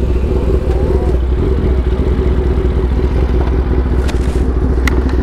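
A Kawasaki sportbike's engine idling steadily, with a couple of short clicks about four and five seconds in.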